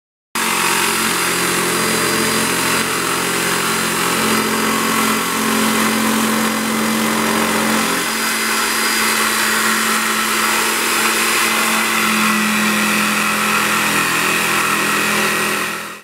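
YATO YT-82272 750 W electric jigsaw plunge-cutting into wet construction timber along the grain, with no pre-drilled hole, running steadily. Its pitch shifts slightly about halfway through, and it stops near the end.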